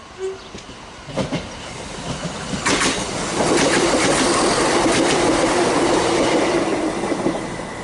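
A multiple-unit passenger train running past a station platform, its wheels clattering over rail joints and points with a steady low hum from the running gear. It builds from about a second in, is loudest from about three seconds in as the carriages go by, and eases near the end.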